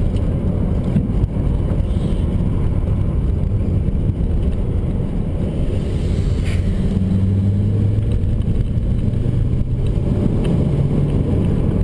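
Car engine and road rumble heard from inside the cabin while driving, a steady low drone. The engine hum comes up more clearly about seven seconds in and shifts in pitch near the end.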